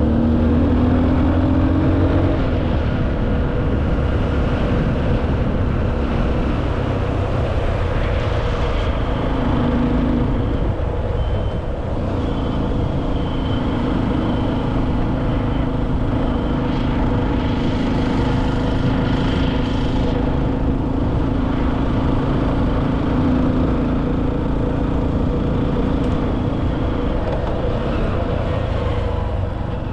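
An engine running steadily under a dense rush of noise, its pitch holding nearly level.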